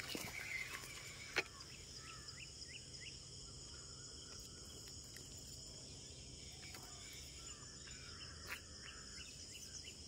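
Steady high-pitched insect drone with short, falling bird chirps over it, and a single sharp click about a second and a half in.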